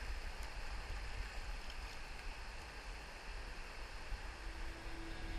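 Fast-flowing river water rushing past a kayak: a steady noise with a deep rumble underneath, picked up close to the water by a boat-mounted camera.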